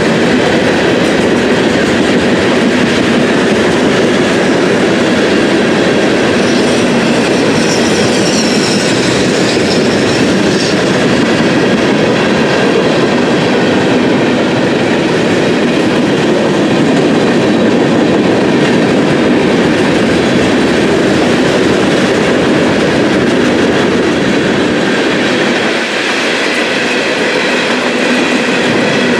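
Freight train cars rolling past close by: steady, loud rumble and clatter of steel wheels on rail joints. A thin high wheel squeal rises over it for a few seconds around eight seconds in.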